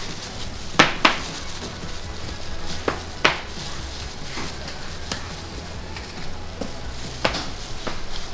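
Metal spoon scraping and clinking against small metal tart tins as coconut filling is pressed into tart shells by hand, with about six sharp clinks, two close together about a second in, over a steady low hum.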